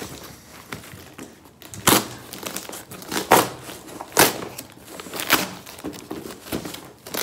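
Gift-box packaging being torn open by hand: crinkling, with several sharp rips a second or so apart.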